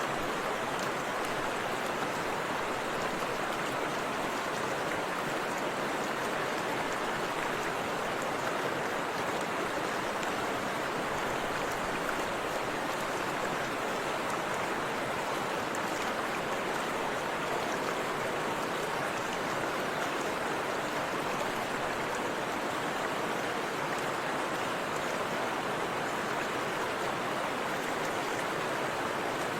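Steady rush of a forest river flowing over rocks and a small waterfall, an even, unbroken sound of running water.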